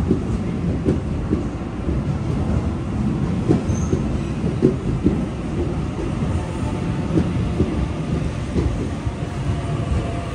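Sydney Trains double-deck electric train moving along the platform: a steady low rumble of wheels on rails with irregular clicks, and a thin whine that comes in during the second half.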